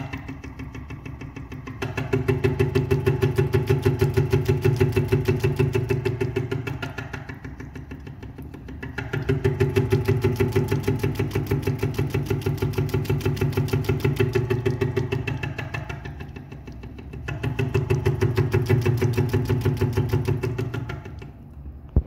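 Broken mixer tap running with a low, rapidly pulsing buzz like a small engine, which swells loud and fades back three times as the water flows.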